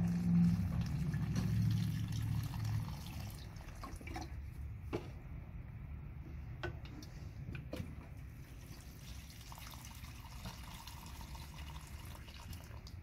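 Water pouring from a watering can's spout onto the soil of a potted plant, loudest in the first few seconds. It then drops to a few separate drips, and pouring picks up again near the end.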